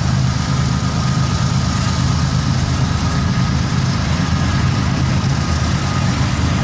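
Cars of a loaded coal train rolling past with a steady low rumble, heard from inside a car.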